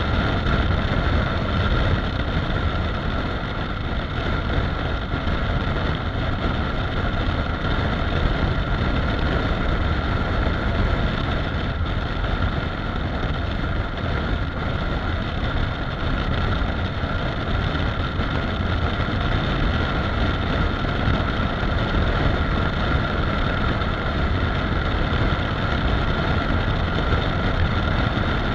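Honda CRF250 Rally's single-cylinder engine running steadily at highway cruising speed, under a constant rush of wind on the microphone.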